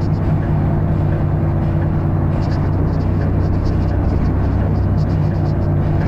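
Volvo B7RLE bus's six-cylinder diesel engine running with a steady low drone, heard from inside the passenger saloon, with faint irregular rattles over it.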